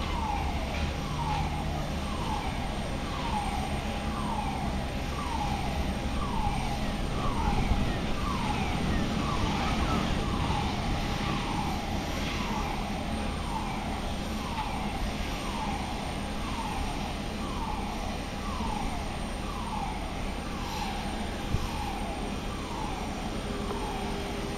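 An electronic warning tone on an airport apron, a falling chirp repeating evenly about once a second. Under it runs a steady low hum from ground equipment and a parked jet.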